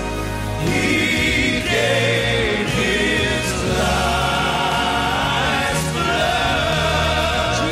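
Male gospel vocal group singing in close harmony, holding long notes with a wavering vibrato over a band accompaniment.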